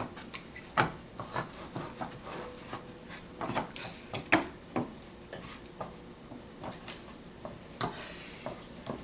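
Plastic Dog Tornado puzzle toy clacking and scraping as a dog works its rotating layers to get at the treats: irregular knocks and rubbing, the loudest knocks about a second in and just past four seconds.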